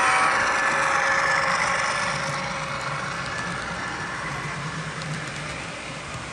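Model locomotive running on a layout, with engine sound from its onboard sound system. A high tone made of several pitches fades out over the first two seconds, leaving a low steady engine hum.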